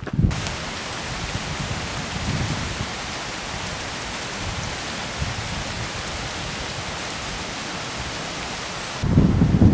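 Steady, even rushing of water, a hiss spread across all pitches. About a second before the end it cuts off abruptly and gives way to low, gusty wind rumble on the microphone.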